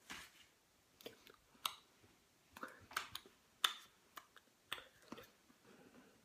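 Scattered sharp clicks, about ten of them at uneven intervals, each short and dry.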